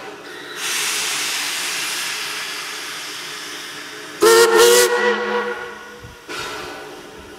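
Steam locomotive hissing steam, with a short steam whistle blast of several tones about four seconds in.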